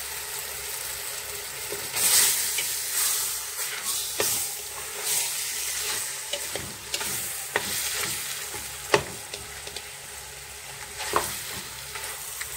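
Marinated meat and chopped onions sizzling in hot oil in a stainless steel pot as they are browned and turned with a wooden spoon. The sizzle swells about two seconds in, and there are a few sharp knocks of the spoon against the pot.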